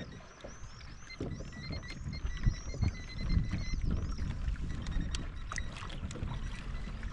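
Water slapping and sloshing against a kayak hull in choppy, windy conditions, with irregular small knocks and splashes.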